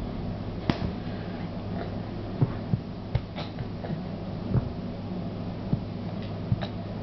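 Steady low hum under a handful of soft, scattered taps and knocks: a baby's hands patting and pushing on a tile floor.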